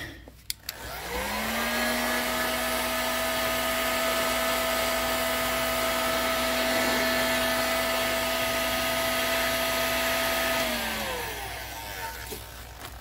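Heat gun's fan motor switched on, spinning up about a second in to a steady whine with rushing air, then switched off and winding down near the end.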